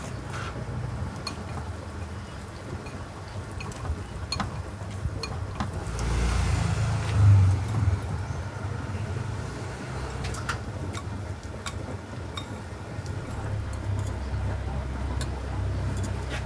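Light clinks and taps of chopsticks and a wire noodle strainer against ceramic bowls while noodles are served, over a steady low rumble that swells briefly about seven seconds in.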